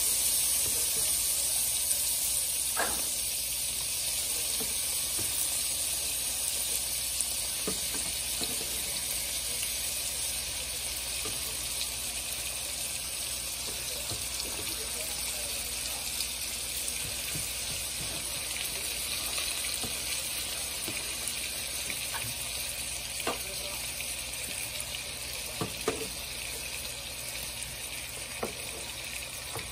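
Raw shrimp frying in bubbling melted butter in a nonstick pan: a steady sizzling hiss that eases slightly as the pan fills. A few light clicks and taps come through as more shrimp go in.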